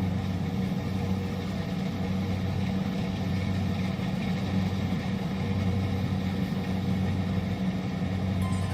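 Kubota DC-70 combine harvester's diesel engine running steadily with an even low hum.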